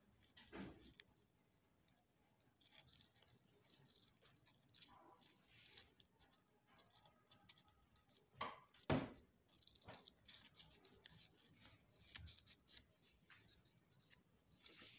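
Faint rustling and crinkling of craft foam sheet petals being handled and pressed together by hand, with two light knocks a little past the middle.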